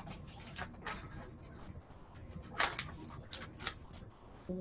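Faint handling noises: light ticks and rustles, clustered about two and a half to three and a half seconds in.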